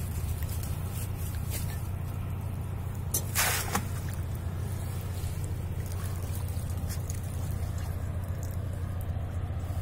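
Water dripping and trickling from a shrimp dip net and a shaken-out rope mop, with one short splash about three and a half seconds in. A steady low hum runs underneath.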